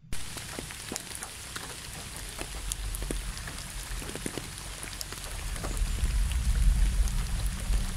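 Steady rain with individual drops striking close by, and a low rumble of distant thunder that swells in the second half.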